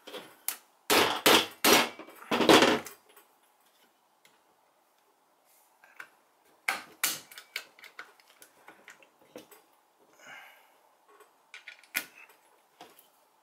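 Sharp metal knocks and clicks as a steel pin is worked into the receiver of a Remington 870 shotgun: three louder knocks in the first three seconds, then fainter scattered clicks and taps.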